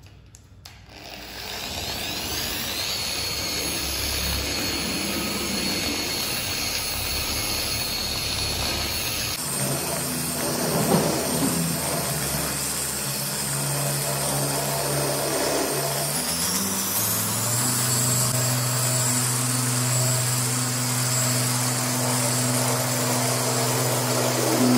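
Dual-action orbital polisher starting up and running on car paint during the first compounding pass for scratch removal. Its motor pitch shifts about nine seconds in and rises again around sixteen seconds in.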